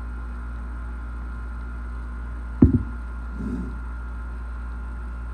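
Steady low hum, with a single sharp knock about two and a half seconds in and a brief, softer rub just after. The knock and rub come from the shotgun barrel being handled and set against the workbench.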